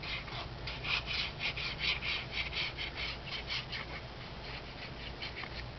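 Paper and cardstock being handled and rubbed, a quick irregular run of crackly scrapes through the first four seconds, then fainter, over a low steady hum.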